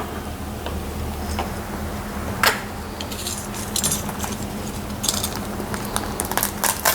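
A small shipping box and its packaging being handled and opened by hand: scattered rustles, taps and small clinks, with a sharper rustle about two and a half seconds in and busier handling near the end.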